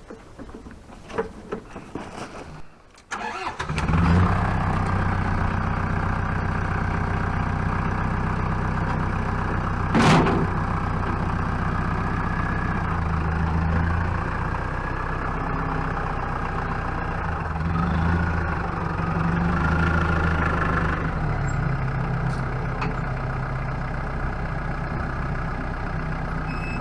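A vehicle engine starts about three to four seconds in and then runs at a steady idle. There is one sharp knock about ten seconds in.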